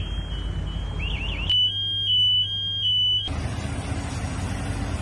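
High-pitched electronic alarm: a rapid chirping warble, then three long beeps on one high tone, like a smoke alarm's beeper. After that a steady low noise with no alarm.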